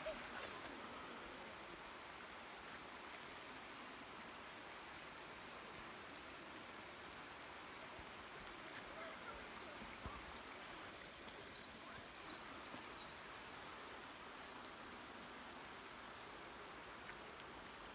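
Faint, steady hiss of light rain falling in a redwood forest.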